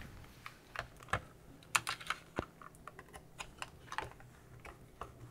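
Irregular light clicks and small scrapes of a screwdriver working on the plastic case of a Commodore 774D calculator as it is opened, over a faint steady hum.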